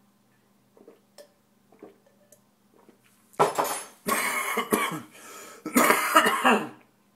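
A man coughing hard in three harsh fits, starting about three and a half seconds in, after gulping down a foul-tasting homemade drink; before that, a few faint gulps as he drinks.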